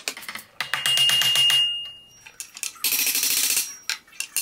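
A hammer driving nails into a Douglas-fir wagon seat, in three runs of quick, ringing metal strikes.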